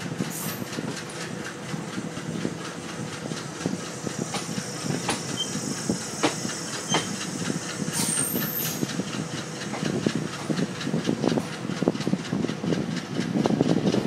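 Indian Railways passenger coaches rolling out of a station, the wheels clattering over rail joints with steady running noise that grows louder as the train picks up speed. Brief high wheel squeals come near the start and again about eight seconds in.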